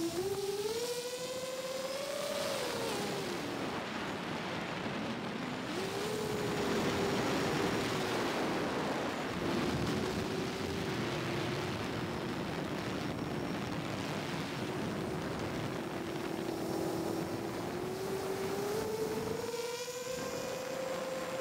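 Motors and propellers of a heavy FPV drone on an 8S battery whining in flight, over a steady rush of propeller wash and wind. The pitch swings with throttle: it rises and then dips a few seconds in, climbs again, holds level through the middle, and rises again near the end.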